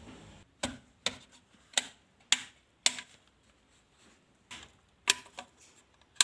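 A series of sharp, irregular clicks and knocks of hard objects being handled, about nine in six seconds, with a short lull in the middle.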